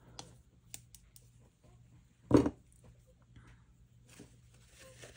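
Handling of craft tools and supplies on a tabletop: a few light clicks, then one loud knock a little over two seconds in, as of something set down hard, and soft rustling near the end, over a faint steady hum.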